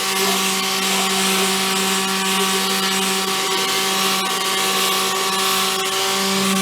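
Electric sanding machine running steadily on a wheel rim: a constant motor hum with a grainy hiss of abrasive on metal over it.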